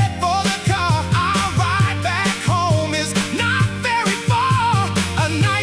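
Upbeat Motown-style soul music with a steady beat, bass and a wavering lead melody.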